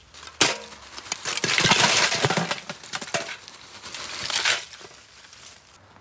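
Lumps of charcoal poured out of a sack around upturned metal buckets: a dense clinking clatter that comes in surges and tails off near the end.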